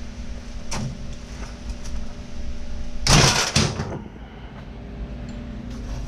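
A short, loud clatter about three seconds in, followed by a smaller one, over a steady low hum in a garage workshop.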